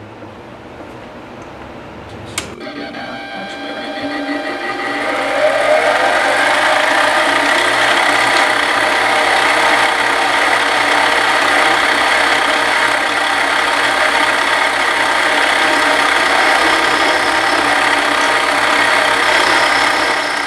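Bench-top mini metal lathe switched on with a click about two seconds in; its motor and gear train spin up, rising in pitch over a few seconds, then run steadily with a gear whine.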